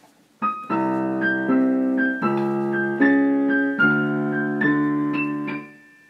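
Yamaha digital piano playing an instrumental introduction. It begins about half a second in, with sustained chords and a melody on top, struck about every three-quarters of a second, and stops just before the end.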